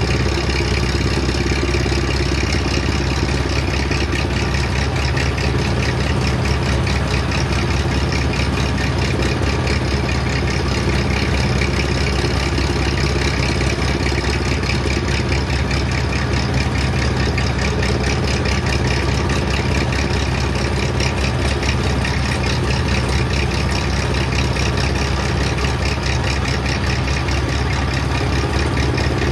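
Tractor's diesel engine running steadily under load, driving a crop cutter machine that is being fed bundles of dry harvested crop. One continuous loud mechanical drone that does not change.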